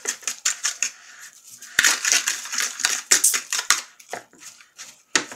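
A metal fork mashing and stirring cottage cheese with egg in a bowl: quick repeated scraping clicks of the fork against the bowl, busiest in the middle.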